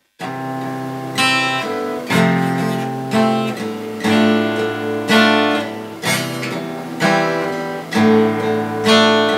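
Acoustic guitar being strummed in chords, a new chord struck about once a second and left to ring into the next.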